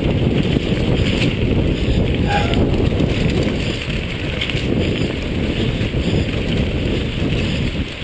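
Loud, steady wind buffeting on a GoPro's microphone during a fast mountain-bike descent of a wet forest trail, mixed with tyre noise on the wet dirt and a few light rattles of the bike.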